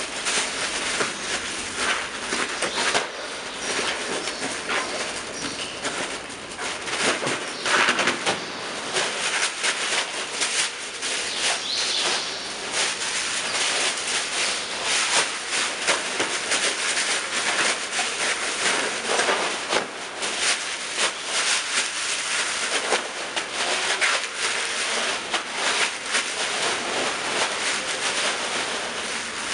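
Large inflated clear plastic bags rustling and crinkling as they are handled and squeezed, a dense, continuous crackle with a few louder bursts.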